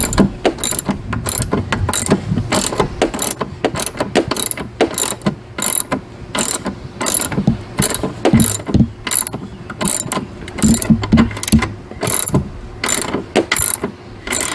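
Socket ratchet clicking in repeated runs of quick strokes, with short pauses, as it backs a nut off a long screw on an outboard motor's mount.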